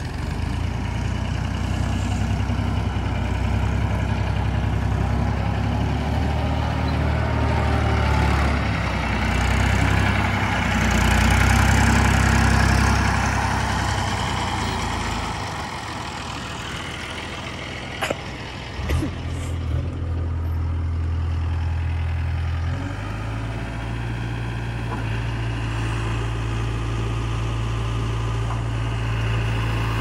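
JCB 3DX backhoe loader's diesel engine running, working harder and louder around the middle, then settling. A few sharp knocks come a little past the middle.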